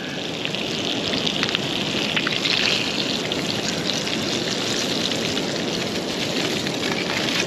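Two surf perch fillets pan-searing in hot olive oil in a small frying pan on a portable gas camping stove: a steady sizzle with fine crackles.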